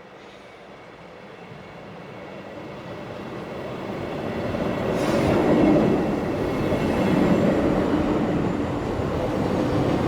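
Commuter train pulling into a station, heard from trackside. The sound grows steadily louder over the first six seconds as the train approaches, then holds as a loud, even rolling rumble of wheels on rails.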